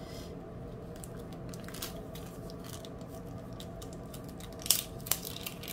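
Faint small clicks and taps of rhinestone drills being picked up and set down with a diamond-painting pen, over a low steady room hum, with two sharper clicks near the end.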